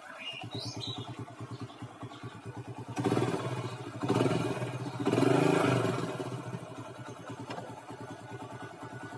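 Honda Astrea Grand's single-cylinder four-stroke engine idling with an even pulse, revved three times in quick blips from about three seconds in, then settling back to idle. It runs without much cam-chain rattle, with a new cam chain fitted.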